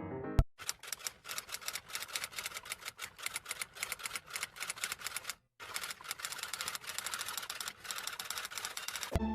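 Typing sound effect: a fast, continuous run of key clicks, with a short break about halfway through.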